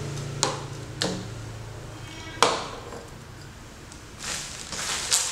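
A few sharp knocks of small objects being set down on a wooden tabletop, the loudest about halfway through, then rustling and crinkling of packaging near the end as a padded mailing bag is handled.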